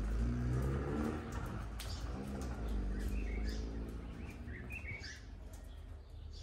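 Small birds chirping in short calls over a low engine drone, likely a passing vehicle, that fades after the first few seconds.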